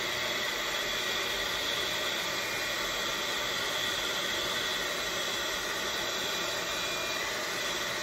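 Electric heat gun running steadily, a rushing blast of air with a faint motor whine, played over wet resin to spread the white into cells and lacing.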